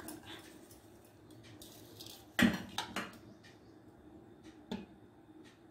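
Slotted steel spoon clinking and scraping against a steel bowl while mixing chunks of raw mango coated in chili masala. A few separate clinks, the loudest about two and a half seconds in, then another near the end.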